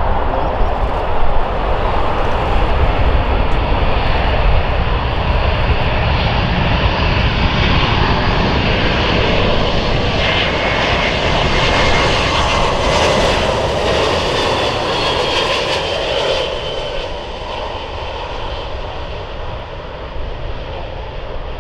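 Boeing C-17A Globemaster III's four Pratt & Whitney F117 turbofan engines on final approach and passing close by: a loud, steady jet rumble with a high whine in the middle. The sound fades in the last few seconds as the aircraft moves away down the runway.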